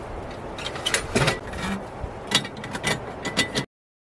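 Irregular knocks and clicks, like gear being handled or something rattling, over a steady rushing noise; the sound cuts off abruptly near the end.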